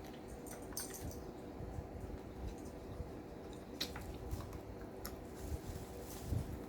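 A person chewing a BLT sandwich close to the microphone: wet mouth sounds with scattered sharp clicks, over a steady low hum.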